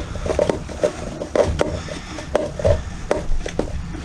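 Irregular metallic clicks and light knocks, several a second, from hand tools working a tight bolt loose on the dirt bike's engine.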